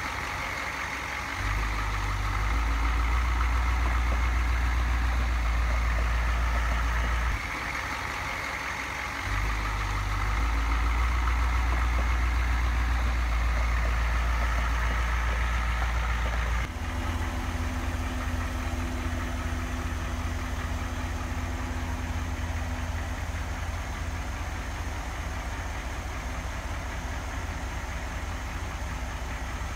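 Ford dump truck's engine running steadily, louder over the first half. About halfway through it changes to a quieter, even low chug as the truck idles while its dump bed is raised to tip out logs.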